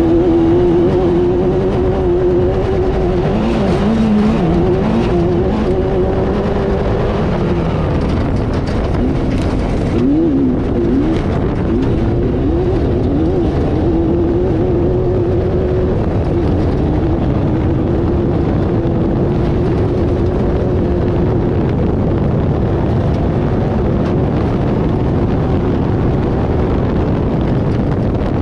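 Off-road race car engine running hard and continuously, its pitch rising and falling with the throttle, with quick rev swings about ten seconds in, over a steady rumble of driving noise.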